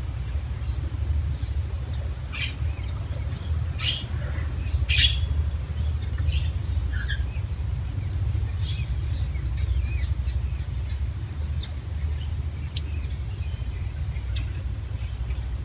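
Birds chirping outdoors: short, scattered high calls, a few of them sharper and louder about two to five seconds in, over a steady low rumble.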